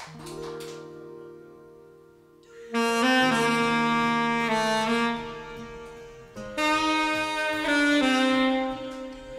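Alto saxophone playing a slow melody of long held notes over an accompaniment. Soft sustained chords open, and the saxophone comes in loudly a little under three seconds in, with one short break just past six seconds.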